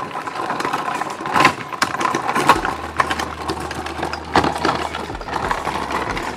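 Kayak cart wheels rolling over a dirt and gravel path close by, a continuous crunching and crackling with scattered sharper cracks, louder moments at about one and a half, two and a half and four and a half seconds; it cuts off suddenly at the end.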